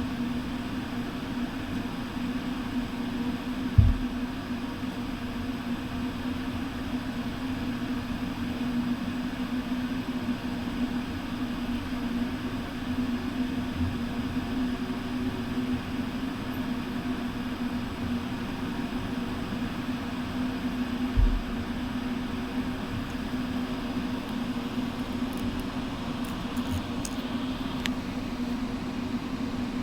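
Steady low drone of a ship's engines and machinery under way, with two brief low thumps, the first about four seconds in and the second about twenty-one seconds in.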